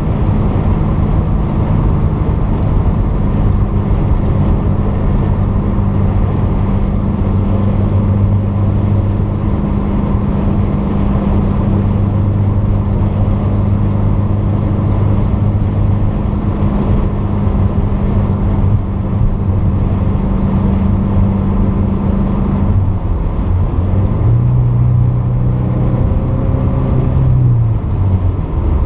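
Porsche 944's 2.5-litre four-cylinder engine running at steady revs while driving, over a constant rumble of road noise. Near the end the engine note breaks off, holds a few seconds at a higher pitch, then settles back to its earlier note.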